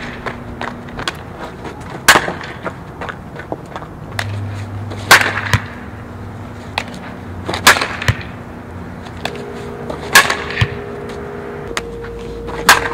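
Softball bat hitting tossed softballs: five sharp cracks of contact, about two and a half seconds apart.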